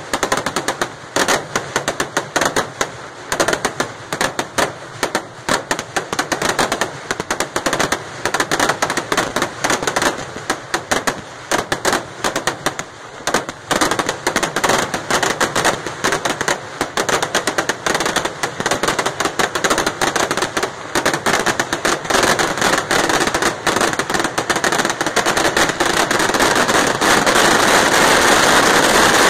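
Rapid volleys of firework bangs from a Kerala temple fireworks display (vedikettu), many bursts a second. From about twenty seconds in they thicken and merge into one unbroken stream of explosions.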